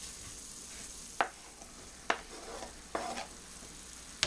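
Squash, zucchini and mushrooms sizzling in a stainless steel skillet. Four sharp knocks about a second apart come as sliced tomatoes are added to the pan.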